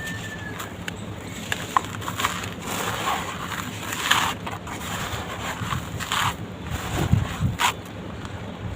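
Lumps of red dirt crumbling and crunching as they are crushed: irregular crackles and sharp crunches, with a few heavier crunches about seven seconds in.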